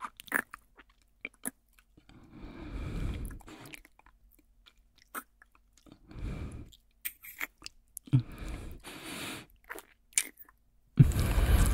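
Close-up kissing: wet lip smacks and mouth clicks, with three soft breaths between them and a louder breath near the end.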